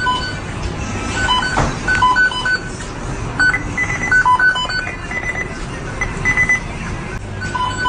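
Fast-food restaurant kitchen: electronic timer beeps from kitchen equipment at a few different pitches, sounding in short irregular groups over a steady low hum of machinery.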